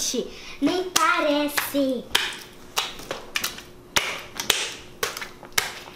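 Hands patting and pressing a large mass of slime down onto a plastic sheet: a string of sharp, wet slaps and squishes about every half second, with a brief child's voice about a second in.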